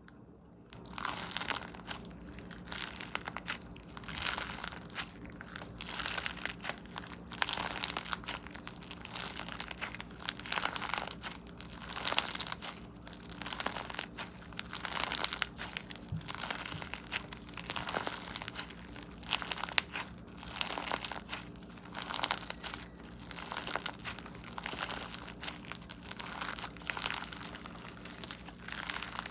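Crunchy slime being squeezed and pressed by hand: a dense run of crackles and pops that starts about a second in and swells and eases every second or two.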